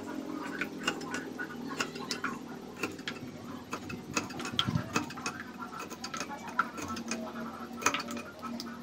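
Kitchen knife slicing small green pea eggplants (cemongkak) on a wooden cutting board: irregular sharp clicks and taps, a few a second, as the blade cuts through each fruit and strikes the board.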